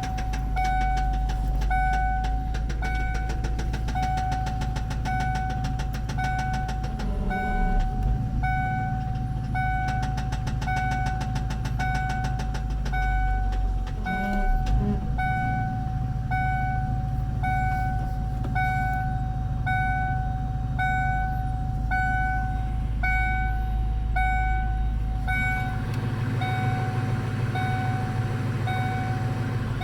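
1998 Ford Mustang GT's 4.6-litre V8 running steadily, with the car's warning chime dinging about once a second until a few seconds before the end. The owner suspects a rod knock or a broken clutch.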